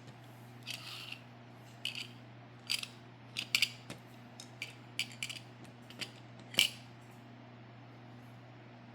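Hands handling a die-cast toy monster truck: a scattered series of short clicks and scrapes, the sharpest about three and a half and six and a half seconds in, over a faint steady hum.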